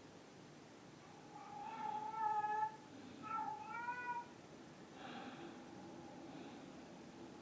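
A cat meowing: two drawn-out meows, one about two seconds in and one about three seconds in, then a fainter one near the five-second mark.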